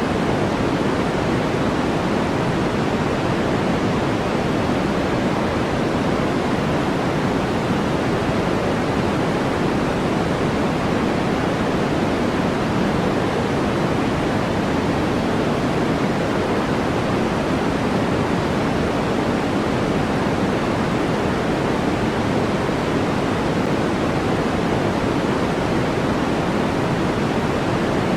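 Steady electronic white-noise track: an even, unbroken hiss with a soft, full body, most of its weight low and little at the top, unchanging throughout.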